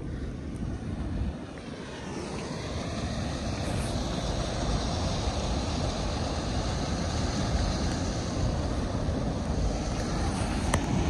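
Steady rush of water pouring over a canal weir, getting louder about two seconds in.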